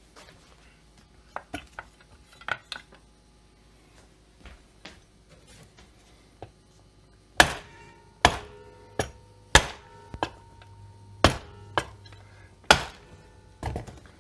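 A few light taps, then a run of about nine sharp knocks, some followed by a brief metallic ring, as the heated crankcase halves of an MS660-clone chainsaw are tapped together over their locating pins.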